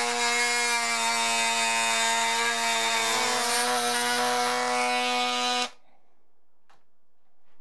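Ryobi cordless oscillating multi-tool cutting through a primed wooden door-jamb piece along a marked line. It gives a steady, even buzz and cuts off suddenly about five and a half seconds in, when the cut is finished.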